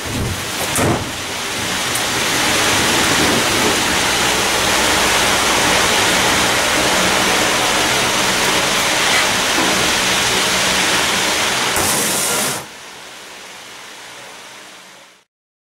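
Steady loud rushing of a big fan blowing across a fuel fire in a car's engine bay, with a few knocks about a second in. About twelve seconds in a sharper hiss breaks out for under a second as the Blazecut suppression tube discharges and puts out the fire, and the noise then drops much lower.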